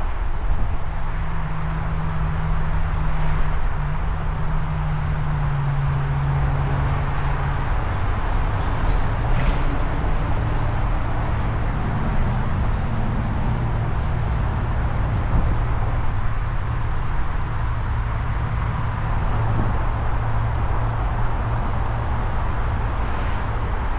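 Distant engine drone: a low hum that shifts slowly in pitch over many seconds, over a steady low rumble.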